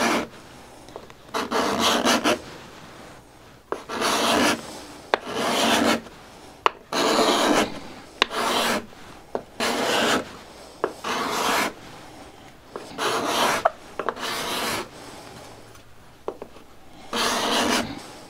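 Steel card scraper pushed across a cherry board in about ten short scraping strokes, each under a second, with pauses between. The maker judges the scraper dull and in need of sharpening.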